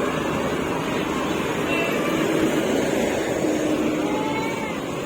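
Steady running noise of bus and traffic engines, with a few faint short tones above it.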